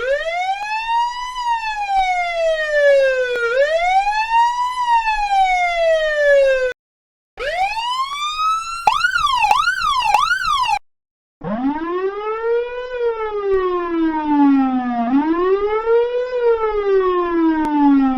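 Police siren sound effect played in three altered variations, with brief silences between them. First a wail rising and falling slowly twice, then a short rise that breaks into a quick up-and-down yelp, then the slow wail again at a much lower pitch.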